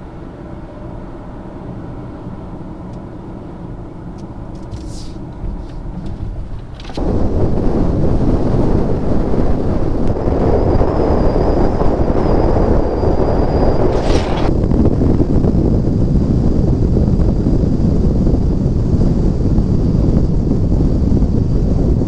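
A vehicle runs with a steady low hum. About seven seconds in, a loud rushing wind noise on the microphone suddenly takes over and stays.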